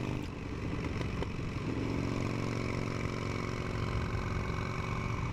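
A steady, low engine-like drone, with a faint click about a second in.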